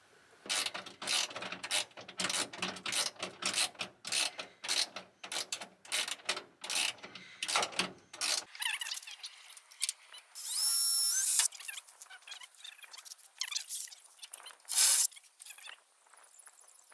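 Ratchet wrench clicking in quick, uneven runs as nuts are tightened onto the mounting bolts of a work light through a sheet-aluminium canopy wall. About ten seconds in comes a loud rising whine lasting just over a second, then a sharp knock near the end.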